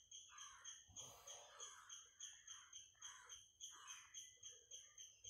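Near silence with faint high chirps in the background, repeating evenly about three times a second.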